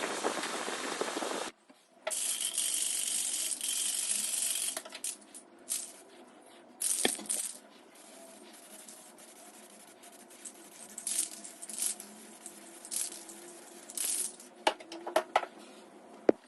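Two long bursts of aerosol spray paint hissing, the first ending about a second and a half in and the second ending a little before the five-second mark, followed by scattered sharp clicks and knocks of hard parts being handled.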